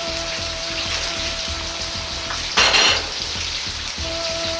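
Eggplant and green pepper pieces deep-frying in hot oil in a wok, a steady sizzle, with a short, louder hiss about two and a half seconds in. Background music with held notes plays over it.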